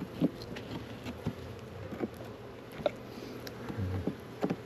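Honeybees buzzing steadily around an open hive, with several short sharp clicks and knocks as wooden hive frames are handled.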